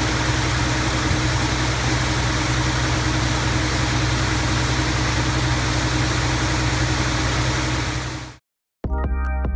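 Mercedes-Benz Actros tunnel-washing truck running with its high-pressure water spray on: a steady engine drone under a constant hiss of spray. It fades out just after eight seconds, and after a short silence electronic music with chiming notes begins near the end.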